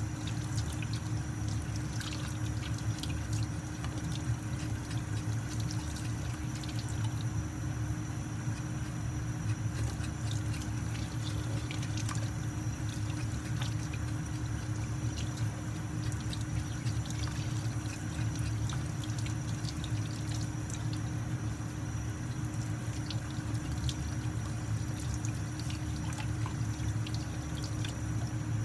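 Tap water running steadily into a sink as snail meat is rinsed and scraped under it, with scattered light clicks.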